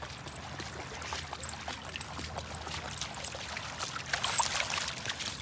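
Water splashing and trickling as a golden retriever wades or swims back with a retrieved object, with small irregular splashes that grow a little louder near the end.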